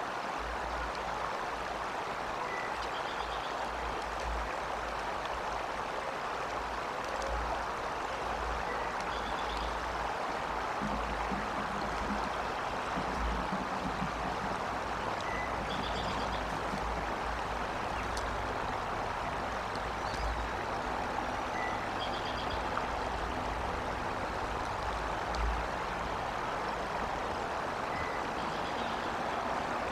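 Steady rushing outdoor background noise with low wind buffets on the microphone, and a faint short bird call repeating about every three seconds.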